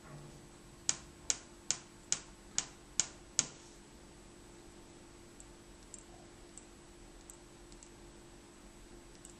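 Seven sharp clicks about 0.4 s apart as wooden toothpicks are handled and flicked between the fingers, then a few faint light ticks as one toothpick is touched against the other. A steady faint hum runs underneath.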